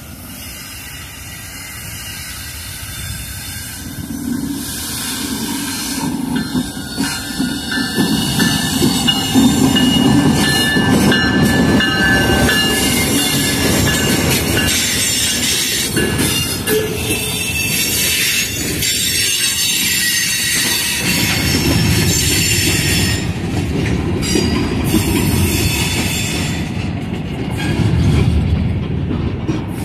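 CSX freight train passing close by: the diesel locomotives grow louder over the first ten seconds as they approach and go by, then the freight cars roll past with a low rumble and high-pitched wheel squeal on the rails.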